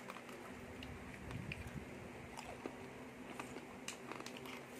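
Quiet eating at a table: scattered small clicks and taps of bamboo skewers against foil trays and a plastic sauce cup, over a steady low hum.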